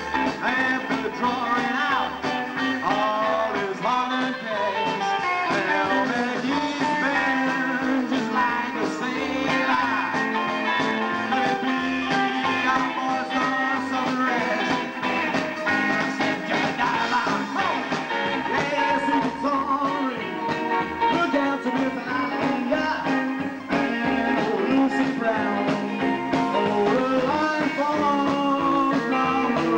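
Rockabilly band playing live, with electric guitar, upright double bass and drums.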